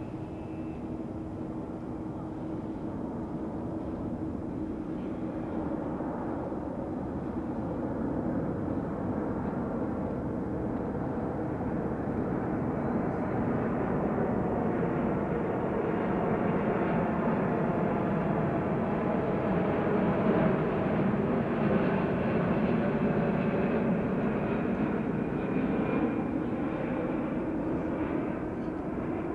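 Boeing 777-300 airliner on final approach, its twin turbofan engines at approach power. The jet rumble grows steadily louder as it comes closer and peaks about two-thirds of the way through, with a thin engine whine over it in the later part.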